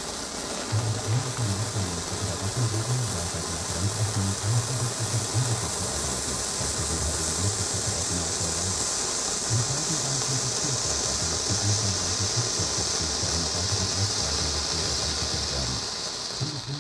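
Small Category 1 colored-flame firework burning with a steady hiss that cuts off near the end, over an uneven low rumble.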